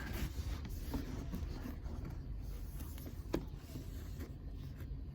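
Car carpet being pulled and shifted across the floor pan: faint rustling with a couple of light clicks, over a low steady hum.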